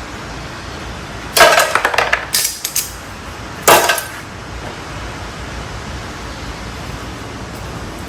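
Metal tools and hardware clattering and clinking: a quick run of rattling clinks about a second and a half in, then a single sharp metallic clank near the four-second mark.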